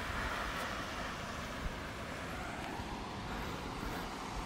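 Steady wash of noise on a flooded street: floodwater moving across the road, with a low rumble of distant traffic. A single small click comes about one and a half seconds in.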